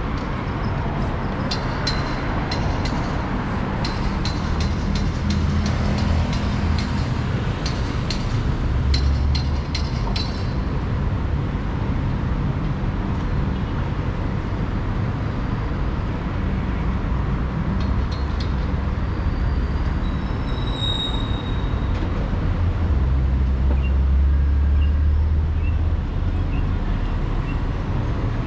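Steady city street traffic: a continuous rumble of cars and larger vehicles passing on a multi-lane road, swelling louder about a third of the way in and again near the end. A run of light clicks and ticks sounds in the first third.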